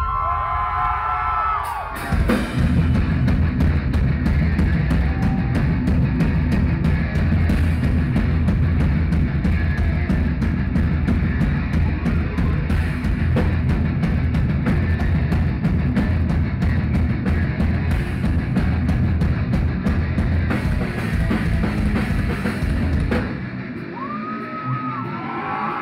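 Heavy metal band playing live: high bending notes at first, then about two seconds in the full band comes in with heavy guitars and fast drums with steady cymbal hits. The band drops out about two seconds before the end, leaving high bending notes again.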